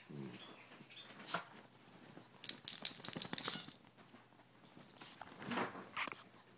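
Two poodles play-fighting on a bed: scuffling and rustling of fur and bedding, with a quick run of sharp clicks about halfway through.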